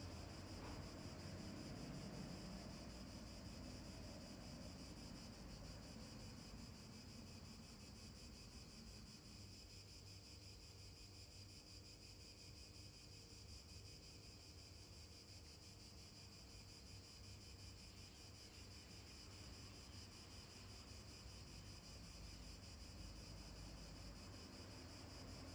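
Near silence: a faint, steady hiss of outdoor ambience with a thin, constant high-pitched tone running through it.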